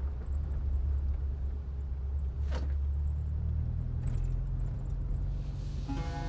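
Car engine and road rumble heard from inside the cabin of an old sedan, steady and deep, with a single knock about two and a half seconds in. Music comes back in near the end.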